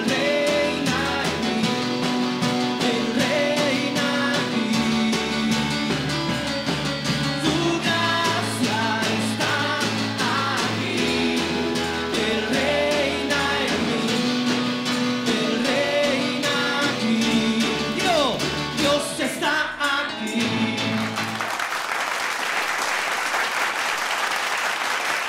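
Live church worship band, several singers on microphones over keyboard, drums and guitar, performing a worship song. About three-quarters of the way through the song ends and the congregation applauds.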